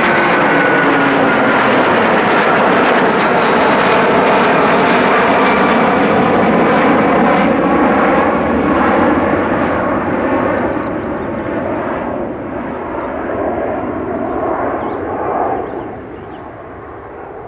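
Airbus A330-300's Rolls-Royce Trent 700 turbofans at climb thrust just after takeoff: a loud, steady jet roar, with a high whine that slides down in pitch and fades in the first second. The roar grows fainter over the last several seconds as the airliner climbs away.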